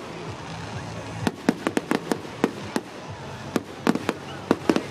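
Fireworks display: exploding shells give an irregular run of sharp bangs, about fifteen reports, starting about a second in.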